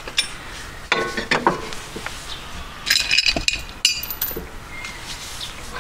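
Steel nuts, washers and bolts clinking and tapping against the coilover's mounting bracket as they are fitted, with short ringing notes. The clinks come in a cluster about a second in and another around three to four seconds in.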